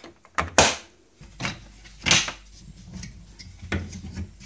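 Latches of a Hitachi HIT-System plastic case being snapped shut: a few sharp plastic clicks in the first second, then scattered single knocks over a low handling rumble.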